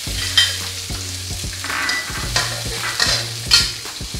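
Steamed beans and ginkgo nuts tipped into hot oil in an aluminium wok and stir-fried with a metal spatula: a steady sizzle, with the spatula scraping and clacking against the pan several times.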